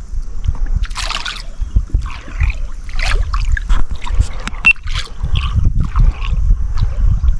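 Water splashing and lapping around a fishing kayak, with scattered knocks and clicks over a steady low rumble.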